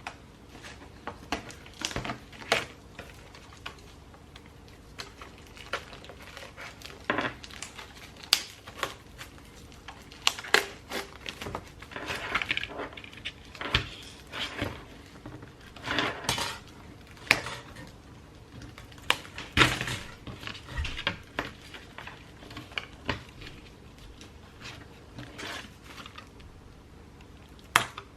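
Hands tearing and working at the plastic and cardboard packaging of a new piston kit, with irregular crinkles, clicks and light metallic clinks of small parts being handled.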